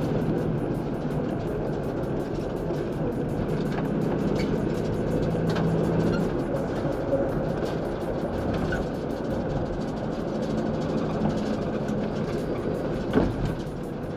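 Steady engine and road noise heard inside a van's cabin while driving, with a single sharp click near the end.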